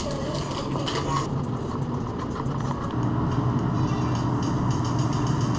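Steady low rumble of a vehicle moving along a road, a little louder from about three seconds in.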